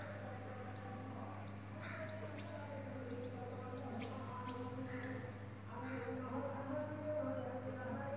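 A small bird calling over and over: a short, high, falling chirp about every half second.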